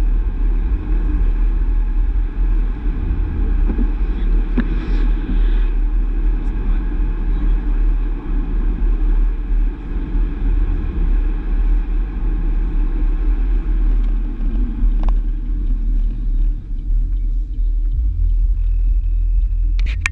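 Astra GTC car driving on the road: a steady low rumble of engine and tyres, with a brief faint click about four and a half seconds in and again about fifteen seconds in.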